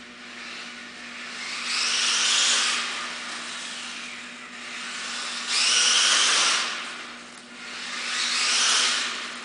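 Xmod RC car with an upgraded T2 motor running past three times at high speed, its high motor and gear whine swelling and falling away with each pass. A steady low hum lies underneath.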